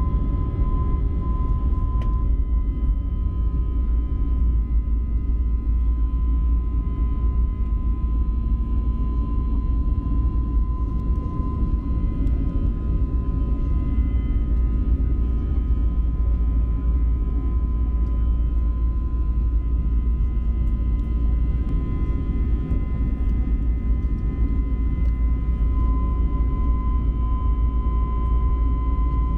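Steady cabin noise of an Airbus A321neo during the initial climb after takeoff: a deep, even engine and airflow roar with a thin steady whine on top.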